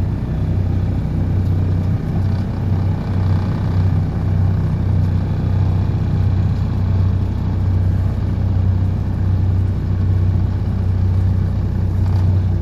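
DPD350T vibratory pile hammer running steadily as it drives a steel sheet pile. It makes a loud, even, deep hum with no breaks.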